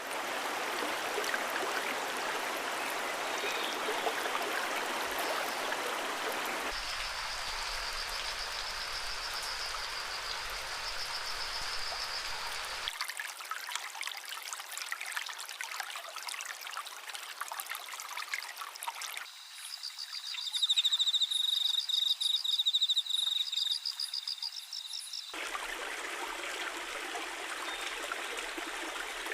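A stream's running water, in segments that change abruptly. Twice a high, rapidly pulsing trill joins it: first softly, about a quarter of the way in, then louder, about two-thirds of the way in.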